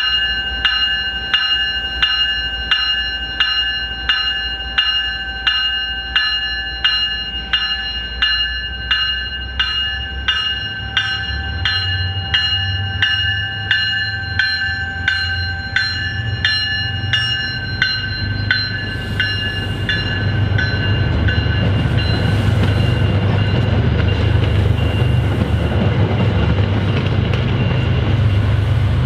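Locomotive bell ringing steadily, about one and a half strokes a second, fading out about two-thirds of the way through. Under it, the low rumble of an MBTA commuter rail train rolling along the platform track builds up and holds.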